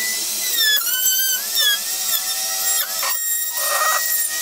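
Dremel rotary tool with a cutting wheel grinding into a hard motorcycle helmet shell, giving a high whine whose pitch dips and recovers as the wheel bites, then holds steady. The hard shell is wearing the cutting wheel away.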